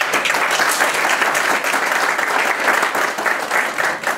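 Audience applauding, a steady patter of many hands clapping that dies down near the end.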